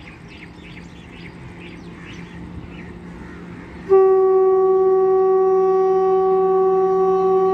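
Electric goods locomotive's horn: one long steady blast on a single pitch starting about four seconds in, the loudest sound here. Before it, a low steady hum grows louder and birds chirp faintly.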